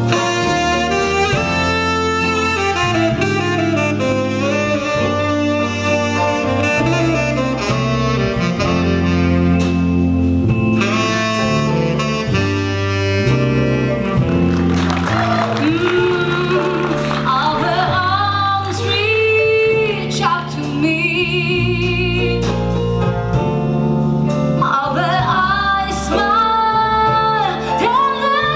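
Jazz big band playing: a tenor saxophone solo over bass, piano and rhythm section in the first half. In the second half a woman sings a slow ballad melody with wide vibrato over the band.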